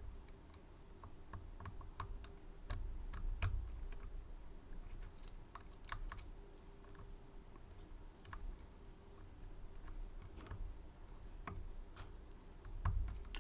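Irregular small clicks of a pick and tension wrench working the pin stacks of a 6-pin Medeco M3 high-security lock, over a low handling rumble.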